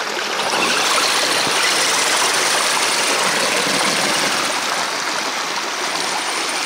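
Creek water rushing steadily around the stuck RC semi truck, with its electric drive motors and winch working under load as it winches itself up the bank.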